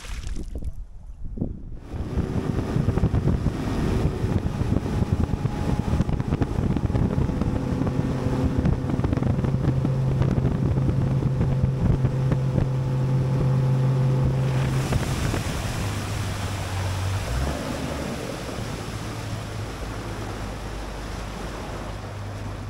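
Bass boat's outboard motor running at speed, with wind and water rushing past. The engine comes in about two seconds in, and its note drops a little about two-thirds of the way through as the throttle eases.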